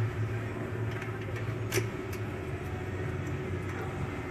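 A finned aluminium valve cover being fitted by hand onto an air-cooled VW engine's cylinder head: a sharp metal click about two seconds in, with a few lighter ticks around it. A steady low hum runs underneath.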